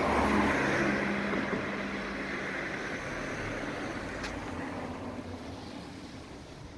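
A passing motor vehicle's engine hum and road noise, loudest at first and fading steadily away as it drives off, with one faint click about four seconds in.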